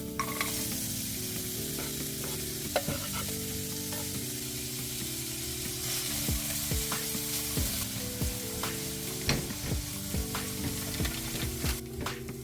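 Food sizzling in a hot frying pan while being stirred, the utensil knocking and scraping against the pan now and then. The sizzling cuts off suddenly near the end.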